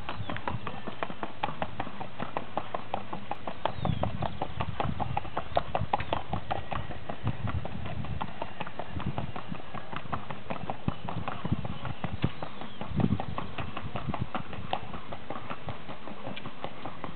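Fast, even hoofbeats of a ridden Colombian Paso Fino horse moving at a short, collected gait on a packed dirt track, a steady run of quick clip-clops.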